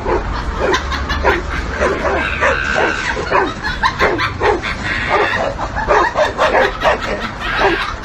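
Dogs barking and yapping at each other in a rapid run of short barks, about three a second.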